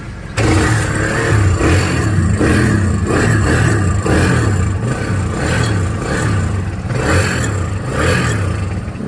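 Rain-soaked Kawasaki Barako motorcycle's single-cylinder engine being worked at a starting attempt. It cuts in suddenly under half a second in, with an uneven pulse about one and a half to two times a second, and stops just before the end.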